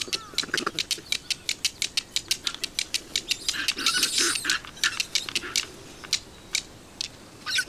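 Japanese macaque knocking and rubbing stones together in its hands: a fast run of sharp stone-on-stone clicks, several a second, with a brief scraping hiss about four seconds in. The clicks thin out near the end.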